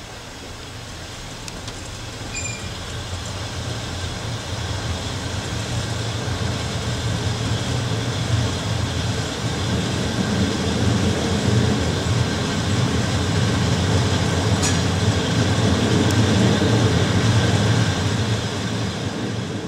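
A passenger train's carriage running on the rails, heard through an open window: a steady rumble of wheels and track that grows louder as the train picks up speed.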